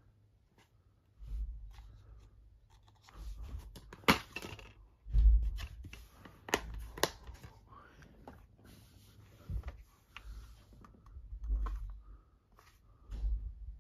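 Plastic DVD and CD cases handled and laid on a fabric bedspread: scattered sharp clicks and taps of the cases, rustling, and several low bumps.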